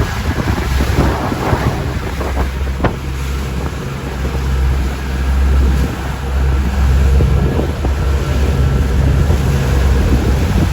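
Wind buffeting the microphone with a heavy, fluctuating low rumble, over a steady wash of sea water.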